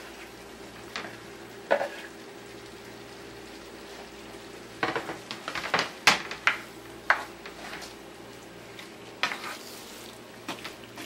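Shrimp sizzling in a frying pan of peppers and curry sauce while a spatula stirs them, knocking and scraping against the pan. Several sharp clacks come about halfway through, and a few more near the end.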